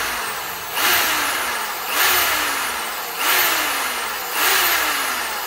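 Tolsen 710-watt corded hammer drill boring into a strip of wood in short trigger pulses: about once a second the motor spins up sharply, then slows and falls in pitch, four times over.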